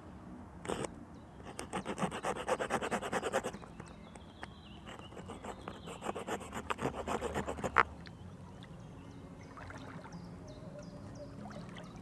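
Victorinox Forester Wood's folding wood saw cutting into a dry root: two bursts of rapid rasping strokes, the second ending in one sharp crack a little before halfway.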